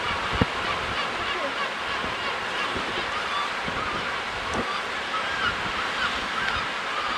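Seabird colony calling: many short, wavering calls overlapping continuously over a steady wash of wind and surf. A sharp knock about half a second in.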